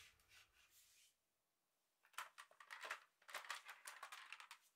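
Near silence, then from about two seconds in faint scattered clicks and rustles of a gloved hand taking hold of a plastic toy AKS-74U rifle.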